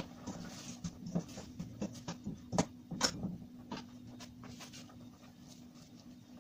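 Scattered light knocks and clinks of cookware and utensils being handled, loudest about two and a half and three seconds in, over a steady low hum.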